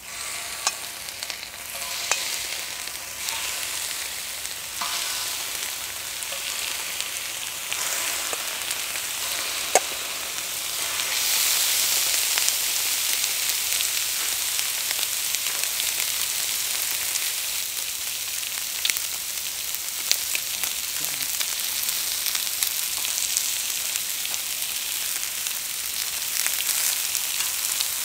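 Raw chicken drumsticks sizzling as they are laid on a hot cauldron-lid griddle (sotttukkeong), with sharp clicks of metal tongs against the lid now and then. The sizzling builds and grows louder about eleven seconds in as more pieces go on.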